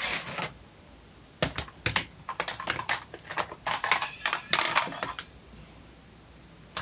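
Rapid, irregular clicking and clattering of small hard objects being handled, from about a second and a half in until about five seconds: someone rummaging through things in search of a battery.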